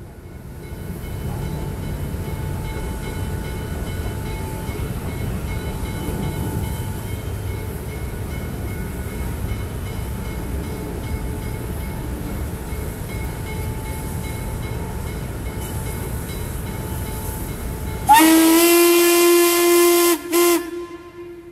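C&O No. 1309, an articulated 2-6-6-2 steam locomotive, rolling past with its passenger train as a steady low rumble. Near the end its steam whistle sounds one long chord blast of about two seconds, then a short toot.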